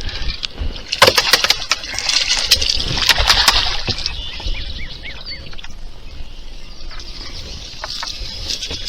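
Water splashing with scattered sharp clicks and knocks as a hooked bass is fought and reeled in beside a kayak, busiest in the first few seconds and easing off later.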